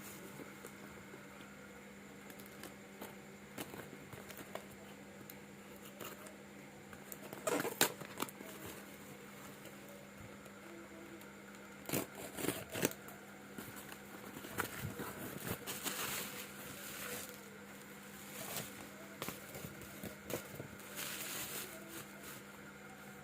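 Packaging of a new smartphone being handled and opened: crinkling plastic and cardboard, with scattered clicks and taps. A steady low hum runs underneath.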